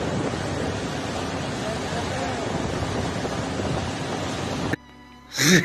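Rockfall from a cliff face: a steady rushing rumble of falling rock and earth, mixed with wind on the phone's microphone and faint voices. It cuts off abruptly near the end.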